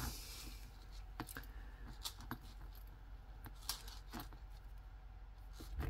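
Faint, irregular little clinks of fine metal jewelry chains being untangled between the fingers.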